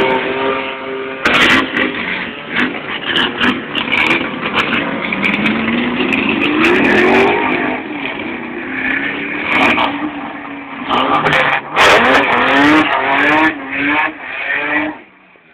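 Ford Falcon's engine revving repeatedly through its side-exit exhaust, the pitch rising and falling with each blip, as the car does a burnout at the start line. The sound cuts off just before the end.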